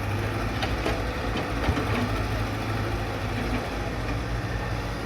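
Heavy diesel engine running steadily at a low hum, with a few short clicks or knocks in the first two seconds.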